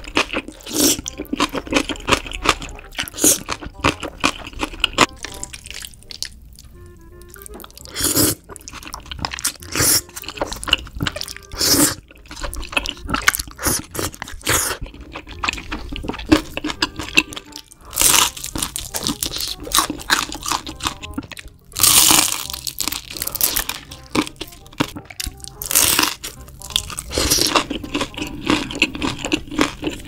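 Close-miked eating: black bean noodles slurped and chewed, with repeated loud crunchy bites coming at irregular intervals. Background music plays underneath.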